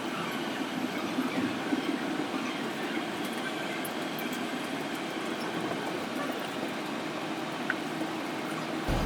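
JR East E231-series commuter train running, heard from inside the carriage as it pulls into its terminus: a steady rumble with faint clicks. About nine seconds in the sound changes suddenly to a louder, deeper rumble.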